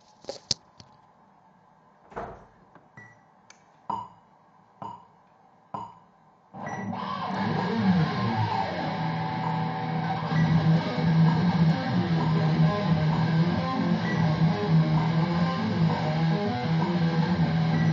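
Guitar: a few separate plucked notes at first, then about six and a half seconds in, continuous guitar music starts suddenly and keeps playing.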